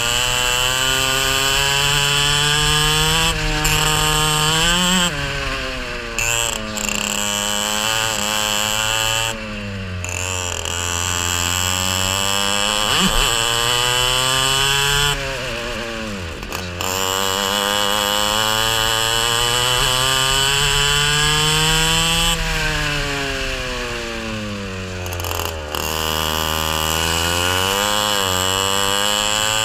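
Racing kart's small engine at full throttle, its pitch climbing steadily along the straights and falling sharply several times as the driver lifts and brakes for corners, heard from a camera mounted on the kart. A steady high whine runs over it and drops out when the throttle is lifted.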